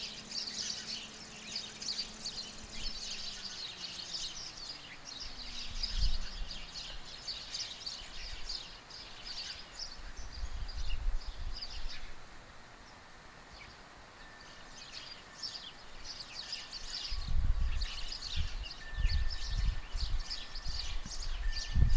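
Many small birds chirping and twittering outdoors, with low rumbling thumps now and then that grow more frequent near the end.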